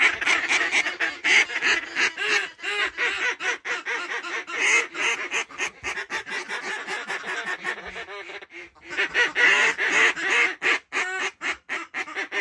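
Hand-blown duck calls sounding a fast, loud run of quacks and honks, several to the second. The calling breaks off briefly near two-thirds of the way through, then starts again.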